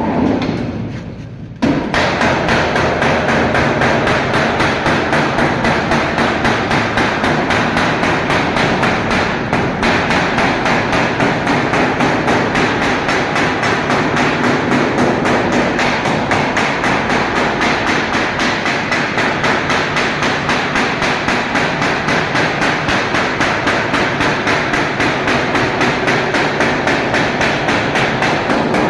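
Rapid, evenly spaced hammering blows, about three or four a second, in a long unbroken run, after a single strike that dies away at the start.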